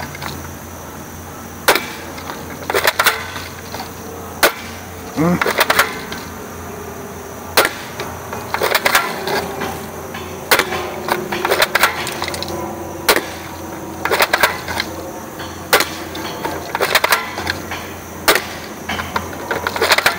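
Single-shot FN SCAR-L replica BB rifle being worked by hand: irregular sharp plastic clicks and clacks, one every second or two and some in quick clusters, as the cocking handle, trigger and magazine are operated on a gun that sometimes doesn't reload.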